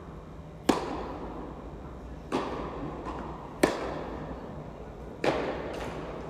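Tennis balls struck by rackets in a rally in an echoing indoor tennis hall: four sharp pocks, about a second and a half apart, each followed by a short echo. The first and third hits are the loudest.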